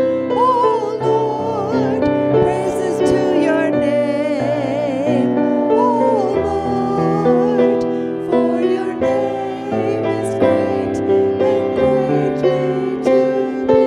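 Church worship singing: voices singing a closing song of praise over sustained instrumental accompaniment.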